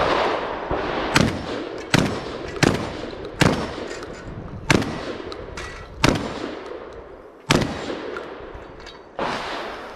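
A Beretta 1301 Tactical 12-gauge semi-automatic shotgun firing about nine shots at an uneven pace, roughly one every second, each trailing off in echo.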